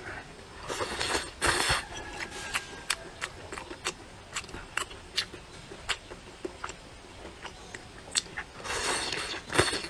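A person slurping and chewing vermicelli noodles: two long slurps, about a second in and near the end, with many small wet mouth clicks between them.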